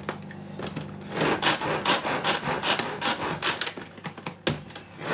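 Tupperware SuperSonic Chopper's pull cord being yanked over and over, a rasping whirr about three times a second, as its blades chop beetroot and chickpeas for hummus. The pulls pause briefly near the end, then start again after a click.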